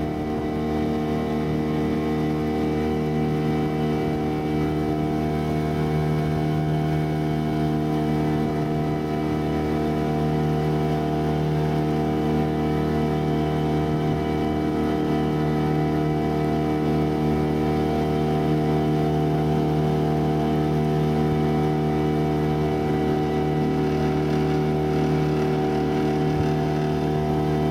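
Small tiller-steered outboard motor on an aluminium boat running at a steady cruising speed, holding one even pitch throughout, over the rush of water and air.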